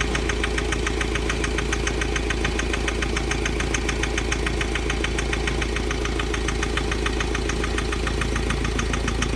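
Mahindra Scorpio mHawk four-cylinder common-rail diesel idling with a fast, regular knock. The knock comes with the EGR valve's vacuum disconnected; the mechanic traces it to the No. 2 injector running slightly off, and says it stops once the EGR valve is switched on.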